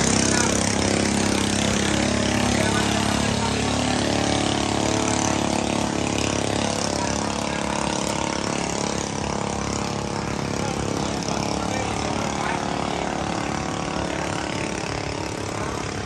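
An engine running steadily and slowly getting quieter.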